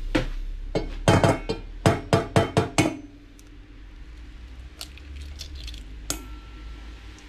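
A rapid run of about seven sharp taps against a mixing bowl, which rings on briefly afterwards, typical of eggs being cracked and separated into the bowl. Fainter ticks follow, then one sharper clink about six seconds in.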